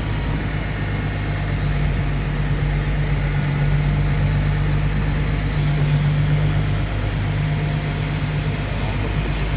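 Heavy engine running steadily: an even, low hum with deep tones that hold throughout, swelling slightly around the middle.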